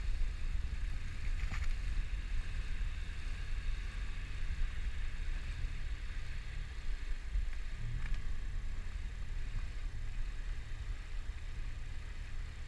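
Boat engine running steadily, a low rumble with a faint hiss above it; it swells briefly about two thirds of the way through.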